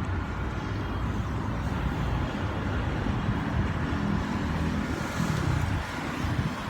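Steady low rumbling noise with a fainter hiss above it.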